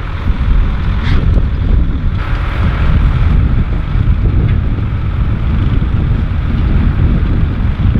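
Wind buffeting the microphone with a heavy, uneven low rumble, over the steady running of tractor engines.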